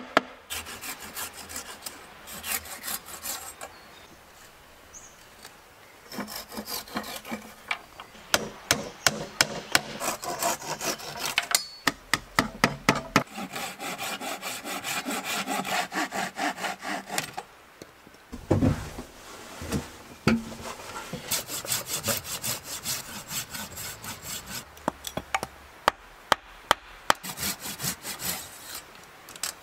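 Folding hand saw cutting wood in several runs of quick back-and-forth strokes, with short pauses between runs. A few heavier wooden knocks come about two-thirds of the way through.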